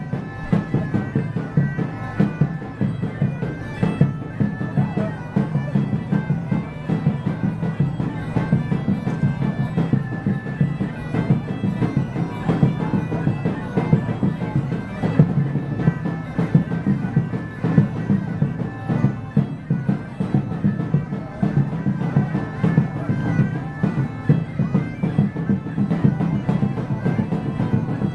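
Bagpipe music with a steady drone and a regular rhythmic pulse.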